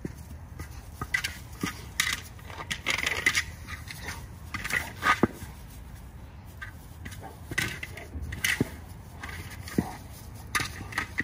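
A large dog shoving and biting an orange plastic ball across dry, crunchy grass: irregular crunching and scraping with occasional sharper knocks.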